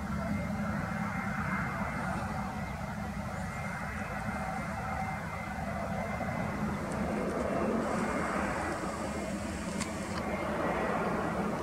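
Jet engines of an Airbus A320-family airliner on final approach: a steady rushing drone that grows louder near the end as the aircraft closes in.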